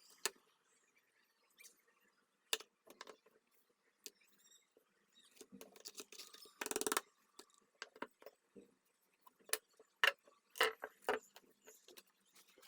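Small sharp clicks, taps and light scraping from handling small metal lighter parts, with a short rasping burst about seven seconds in and a quick run of clicks near the end.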